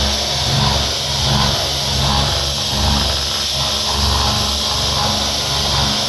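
CNC milling machine rough-cutting: a steady machine noise of spindle and cutter, with a low throb and a high hiss, swelling and easing slightly about once a second.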